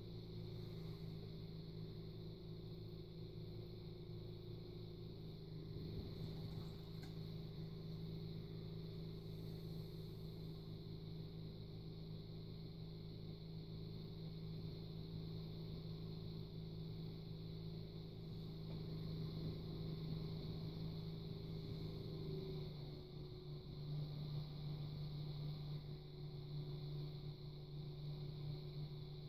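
Electric potter's wheel motor humming steadily while a clay cup is thrown on it; the hum's pitch drops slightly about 22 seconds in as the wheel's speed changes.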